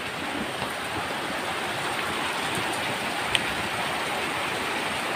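Steady rain falling, an even hiss with one small tick a little past three seconds in.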